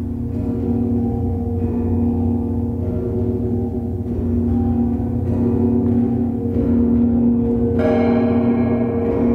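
Handmade metal sound sculptures struck with a mallet, giving a sustained, gong-like ringing drone renewed by a fresh strike about every second or so. A brighter, sharper strike comes near the end.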